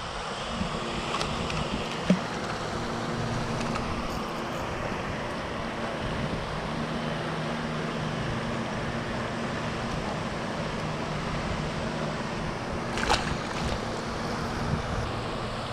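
Wind blowing across the microphone, with a steady low hum underneath. A brief knock about two seconds in and another short sharp sound near the end.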